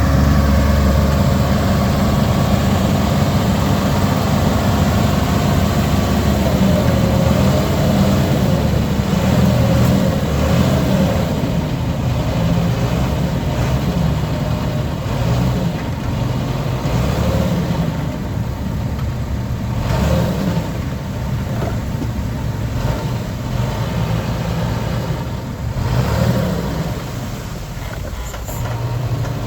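Heavy diesel engine of earthmoving machinery running under load, its pitch rising and falling as it works, with a few brief knocks in the second half.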